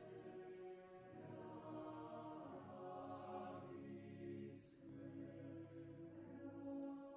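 Mixed choir singing soft, sustained chords a cappella, with a brief break about four and a half seconds in before a new chord begins.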